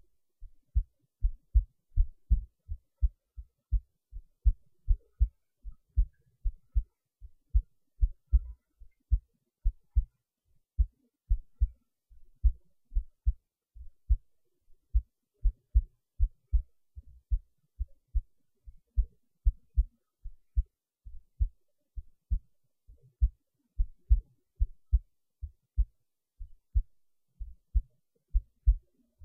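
Recorded human heartbeat: short low thuds in a steady, even rhythm of about two a second.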